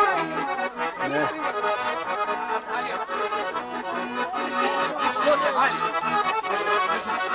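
An accordion playing a lively traditional dance tune live, with quick notes over a steady rhythm.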